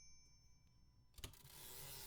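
Typewriter bell ringing out, its ding fading away over about a second, followed by a faint rising rush of noise.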